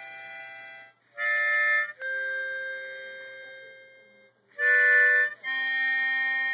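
Harmonica played in a run of held chords, each a second or two long, with short breaks between them; one chord fades out slowly before the next begins.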